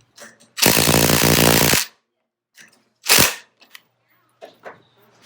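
Cordless impact driver hammering a threaded bolt into a wooden table leg for about a second, then a second short burst as the bolt stops going in.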